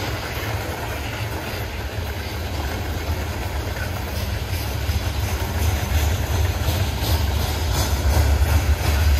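Freight train rolling by: a steady, deep rumble of cars on the rails that grows gradually louder, with faint wheel clicks near the end.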